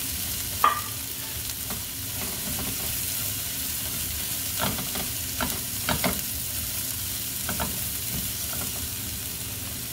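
Rice, bell peppers and freshly added grated carrot sizzling in butter in a pan, stirred with a spatula that taps and scrapes against the pan. There is a sharp tap about a second in, and a cluster of taps around five to six seconds in.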